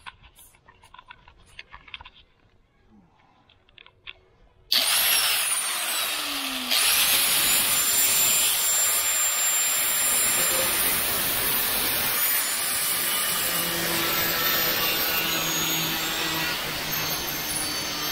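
A few faint handling clicks, then an angle grinder starts suddenly about five seconds in, and about two seconds later its thin cutoff wheel bites into the rusted sheet steel of a 1972 Chevy Nova's lower quarter panel, a steady loud cutting noise that carries on.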